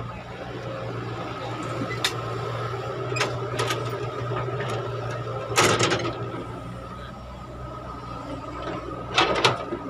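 Caterpillar hydraulic excavator's diesel engine running steadily under load while it loads a dump truck, with sharp clanks and knocks from the bucket and boom linkage. A louder clatter comes a little past the middle as a bucketful of dirt is tipped into the truck, and another pair of knocks near the end as the bucket swings back to dig.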